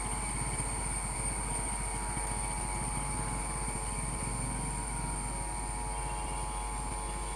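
Indian Railways electric locomotive approaching in the distance: a steady low rumble with steady high-pitched tones above it.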